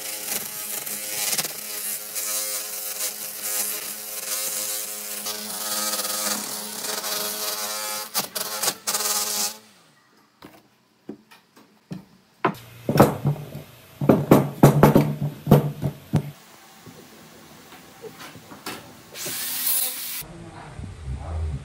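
Homemade sander, an electric motor driving a sanding disc on a long shaft, running and grinding bark off a log: a steady motor whine over a rough sanding hiss that cuts off suddenly after about ten seconds. After a short silence come a few seconds of loud irregular knocks and rubbing.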